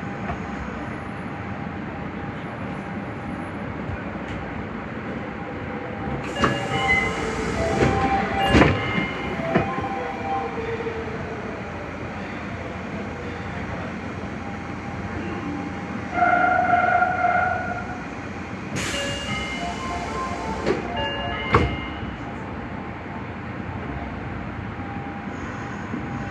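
Nagoya subway 5050-series train: running noise with brake squeal and air hiss. About sixteen seconds in comes a short, steady departure warning horn lasting under two seconds, the horn that sounds abnormal on this train set. A hiss of air and the train moving off follow.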